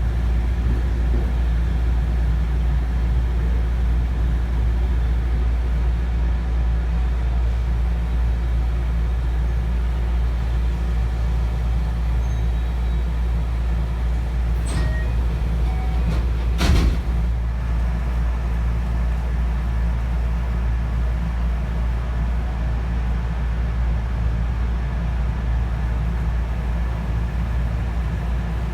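Running noise heard inside the passenger car of a JR West 223 series electric train: a steady low rumble of wheels on rail and running gear. A sharp knock comes about 17 seconds in, with a fainter one shortly before.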